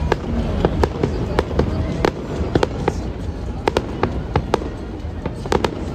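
Aerial fireworks bursting: an irregular string of more than a dozen sharp bangs and pops over a steady low rumble.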